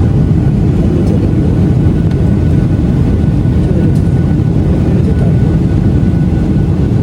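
Steady low roar of an airliner's engines and airflow heard inside the passenger cabin, even throughout, with a faint steady high whine above it.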